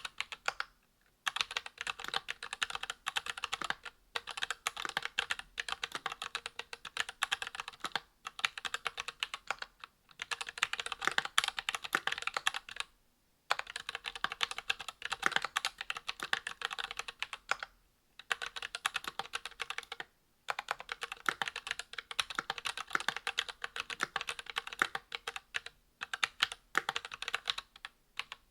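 Mechanical keyboard typed on in quick runs of a few seconds, broken by short pauses. It is an aluminium Monstargear XO V2 with a brass plate and GMK keycaps, fitted with ZealPC Zealios V2 62g tactile switches with lubed springs, and lubed, clipped plate-mount stabilizers.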